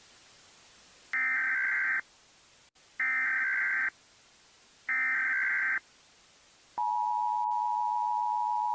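Emergency Alert System signal: three bursts of digital SAME header data tones, each just under a second long and about a second apart, then the two-tone EAS attention signal held steady for about two seconds until it cuts off.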